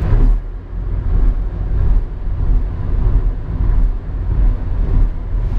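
Steady engine and road rumble of a van driving along a highway, heard from inside the cabin.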